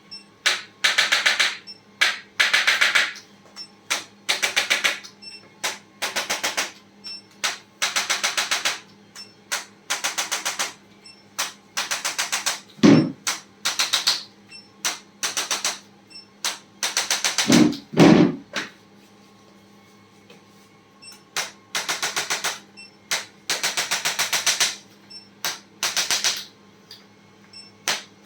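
Handheld chiropractic adjusting instrument firing in short bursts of rapid clicks, again and again, with a few heavier thuds about halfway and two-thirds of the way through.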